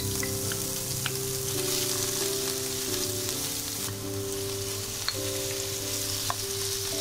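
Hot oil sizzling steadily in a frying pan as chopped green onion and grated lemon peel, then prawns, go in and are stirred with a wooden spatula, with a few sharp clicks.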